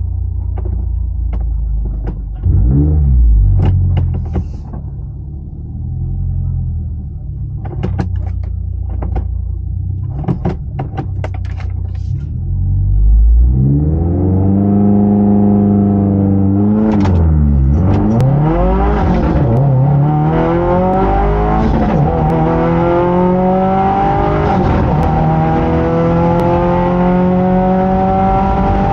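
2022 Subaru WRX's turbocharged 2.4-litre flat-four, heard from inside the cabin, idling with a quick rev and some clicks and knocks. About halfway through it launches and pulls hard down the drag strip, its pitch climbing through the gears with a sharp drop at each shift.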